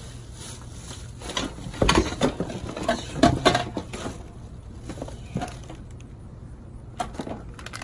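Handling noises: a run of light clicks and knocks, loudest about two seconds and three and a half seconds in.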